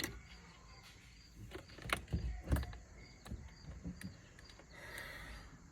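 Sharp metallic clicks and knocks of hand tools working a corroded car battery terminal loose, the loudest two about two seconds in, followed by a short hiss near the end.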